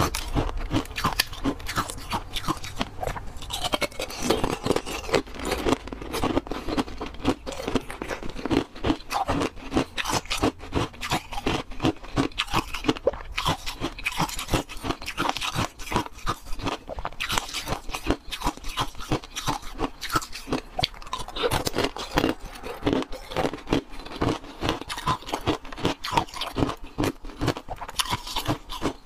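Frozen milk-tea ice being bitten and chewed close up, a dense, continuous run of irregular crunches and cracks.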